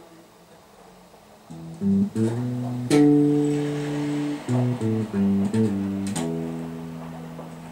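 Guitar playing a slow melodic fill of single plucked notes: a few notes rising, one note held for over a second, a quick run of short notes, then a final note left ringing and fading.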